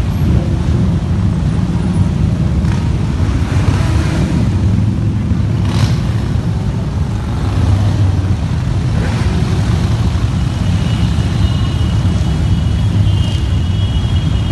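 A procession of Harley-Davidson V-twin motorcycles riding past in a steady low rumble, with individual bikes swelling louder as they go by. A thin high-pitched tone joins in near the end.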